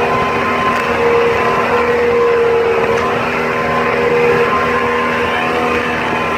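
Speedboat engine running steadily at speed: a constant loud drone under a steady rush of noise.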